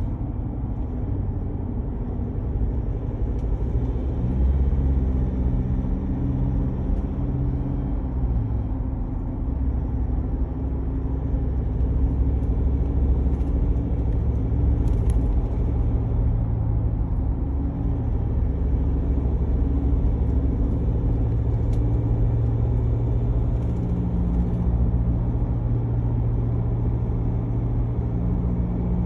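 2019 Ford Ranger Wildtrak 2.0 L bi-turbo on the move: a continuous low drone with a humming tone that steps in pitch a few times and grows stronger about halfway through, over big-tyre road noise. The hum is the truck's unresolved noise fault, which the owner says gets loud enough to draw pedestrians' attention.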